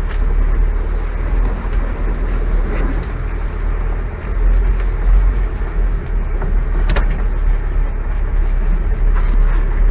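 Opel Frontera A Sport driving off-road through dense brush: engine running with a steady, heavy rumble as branches scrape and slap against the body, with a sharp snap about seven seconds in.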